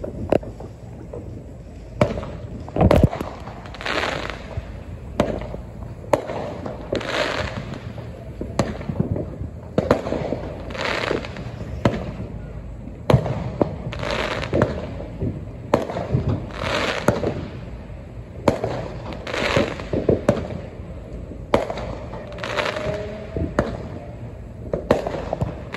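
Fireworks going off repeatedly: many sharp bangs and pops, with a burst of hiss every one to three seconds.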